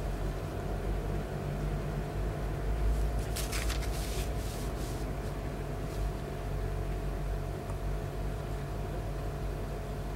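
Steady low background hum with a faint constant tone, like an appliance or air conditioner running in a small room; about three and a half seconds in, a brief soft rustle is heard over it.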